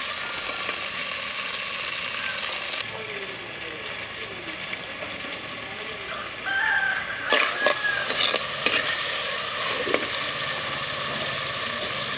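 Chopped tomatoes and shallots frying in hot oil in a clay pot: a steady sizzle that grows louder about seven seconds in, with a few sharp knocks around then.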